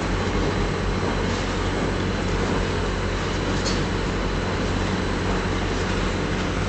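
Mortar pump mixer machine running: a steady, even mechanical hum with a low drone.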